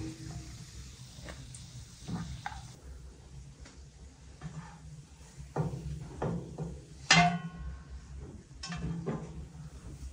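Metal cookware and utensils knocking and clattering, with one loud ringing clang of metal on metal about seven seconds in.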